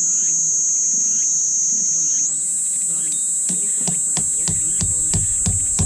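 Insects keeping up a loud, steady, high-pitched buzz that steps slightly higher about two seconds in. Background music with a regular beat comes in from about halfway.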